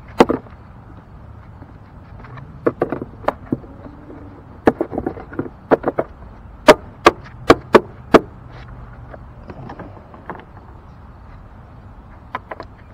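Hard plastic engine cover being fitted onto a Volvo five-cylinder engine: a scatter of sharp plastic clicks and knocks, with a quick run of five loud snaps about seven seconds in as it is pressed home.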